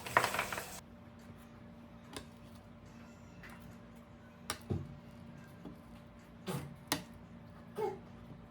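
A few separate light clicks and knocks, as of household objects being handled, over a faint steady hum; a louder rushing noise cuts off suddenly just under a second in.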